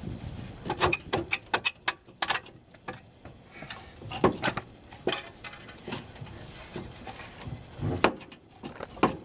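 Rusty steel lower control arm of a Honda Accord being wiggled and worked free of the subframe and suspension by hand: a string of irregular metallic clanks and knocks, with a few louder knocks around four to five seconds in and near the end.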